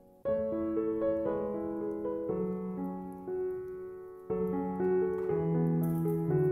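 Background piano music: a slow, gentle melody of sustained notes over lower bass notes, starting about a quarter second in.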